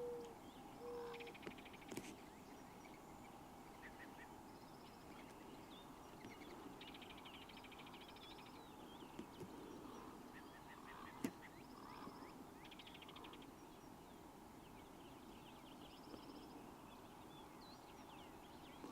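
Faint outdoor bird sounds: a dove cooing at the start, then small birds chirping and trilling on and off, with one sharp click about eleven seconds in.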